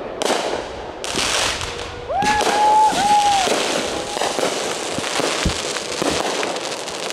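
Fireworks display going off: dense crackling and popping from the bursting shells and fountains, with a brief whistle a little over two seconds in.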